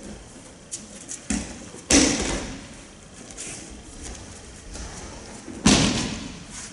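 Two heavy thuds of an aikido partner's body hitting the tatami mats in breakfalls as he is thrown, about two seconds in and again near the end, each echoing in the large hall. Lighter thumps of bare feet stepping on the mat come between them.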